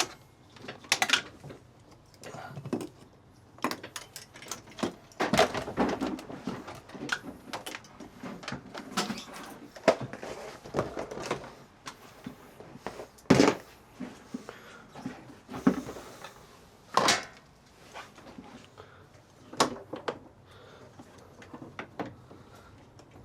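Irregular clicks, knocks and clatters of hands and tools working at a car battery, as the charger is unplugged and the battery terminals are reconnected.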